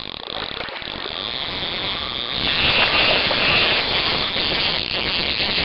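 Sound effect under an animated title intro: a dense rattling, clicking noise that grows louder about two and a half seconds in.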